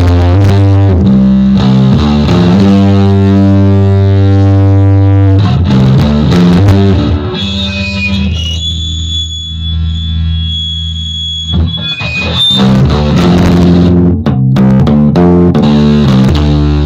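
Electric bass guitar played through a bass overdrive pedal: a distorted line of notes, some held, with a quieter long note fading away in the middle while a thin high steady tone sounds above it.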